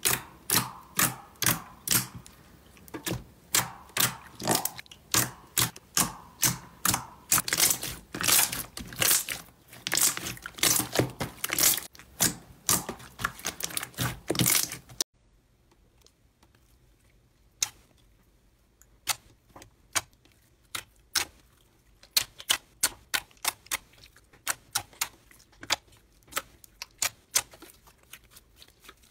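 Slime squeezed and pressed by hand, giving a fast run of sharp wet pops and clicks, about two or three a second, as air pockets in it burst. About halfway through the pops drop away suddenly to fainter, sparser clicks.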